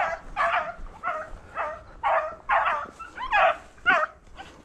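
Beagle giving short, high yelping barks in quick succession, about two a second.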